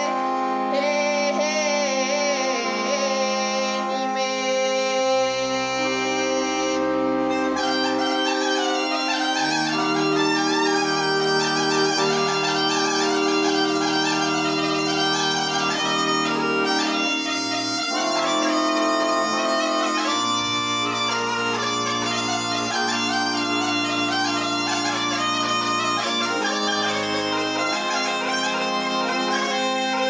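Bulgarian folk music instrumental break on a backing track, led by a bagpipe (gaida) playing a quick, ornamented melody over a steady drone. A girl's last sung note fades out a few seconds in.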